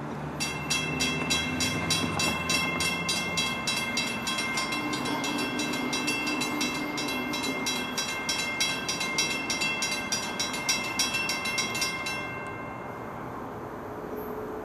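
Railroad grade-crossing bell ringing in rapid, even strikes while the crossing gates lift after a train has cleared; it stops about twelve seconds in. A low rumble fades out in the first few seconds.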